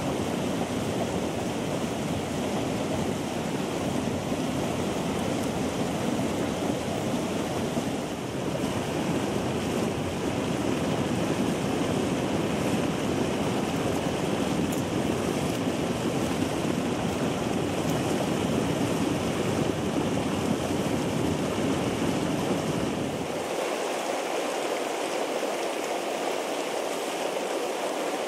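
Skovorodka hot spring's vent bubbling hard through gravel and spilling into a shallow runoff stream: a steady rushing, gurgling water sound. About three-quarters of the way through, the deep low part of the sound cuts out suddenly while the bubbling carries on.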